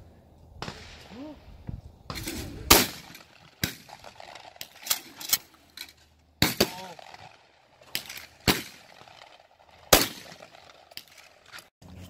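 Pump-action shotgun fired several times, each shot a few seconds apart, with sharper, quieter metallic clacks of the slide being worked between shots.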